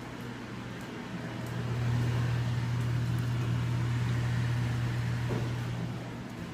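Microwave oven running: a steady low hum, growing louder about a second and a half in and dropping back near the end.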